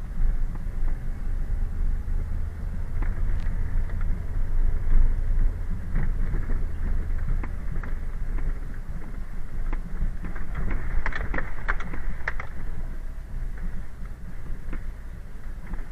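Car driving on a rough, not-yet-asphalted dirt road: a steady low rumble of engine and tyres, with a cluster of knocks and rattles from the bumpy surface about two-thirds of the way through.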